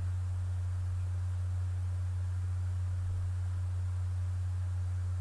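Steady low electrical hum at a single pitch, unchanging throughout, with no other sound standing out.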